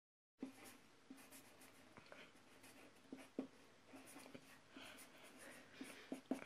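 Faint scratching of a red marker writing letters on a sheet of paper, in short separate strokes.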